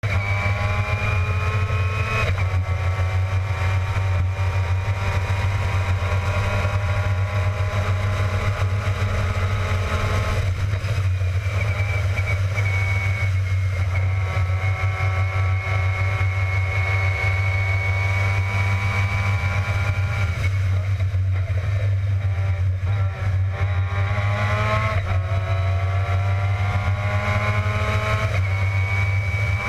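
Formula Mazda race car's rotary engine running hard at high revs, its pitch shifting abruptly several times and climbing steeply once as the driver shifts gears and brakes for corners. Heard from a helmet-mounted camera, with a steady low wind rumble beneath.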